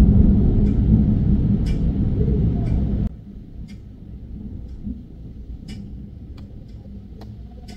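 Low rumble of thunder in a rainstorm, cut off abruptly about three seconds in; after that a quieter hiss of rain with scattered sharp drip taps.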